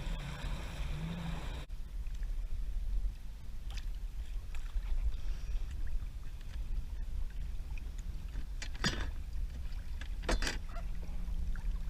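Water moving around a kayak on the water, a steady low rumble, with a few short splashes about four, nine and ten seconds in.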